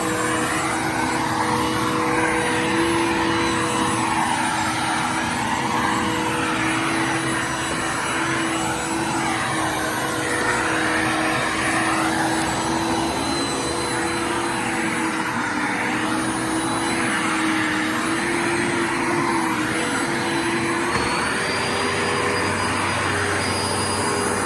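Bissell Lift-off Multi-Cyclonic Pet upright vacuum cleaner running steadily: a motor hum with a rushing airflow whose pitch swells and falls about every two seconds.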